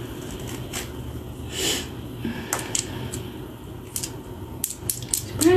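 Scratchy rustling and scattered small clicks of matted locs being picked apart with a comb, with one longer, louder rustle about one and a half seconds in, over a low steady hum.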